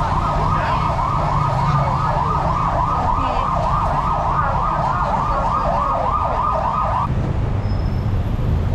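Emergency vehicle siren in its fast yelp pattern, rising and falling about three times a second, cutting off suddenly about seven seconds in, over the steady low rumble of street traffic.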